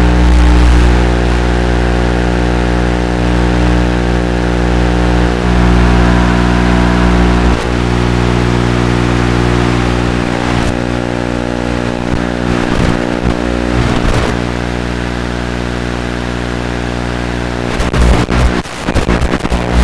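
Steady electrical hum of several fixed tones, with short whines from the RC crawler's electric drive motor around thirteen seconds in and again, louder, with knocks near the end as it drives over the branches.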